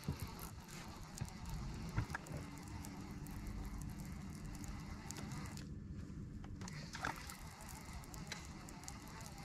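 Light clicks and small knocks of fishing tackle being handled in a boat, with a faint steady whir for a few seconds in the middle.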